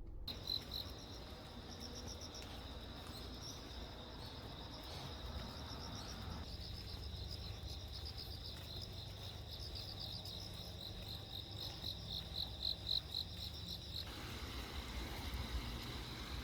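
Insects, cricket-like, chirping in a steady high pulsing trill over low background rumble.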